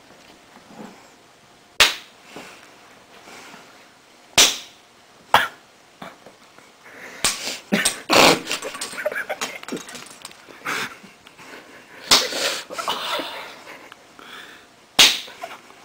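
Heavy-duty plastic spoons struck against each other in sharp cracks, about seven hits a second or several apart. A busier run of smaller knocks and scuffling falls in the middle.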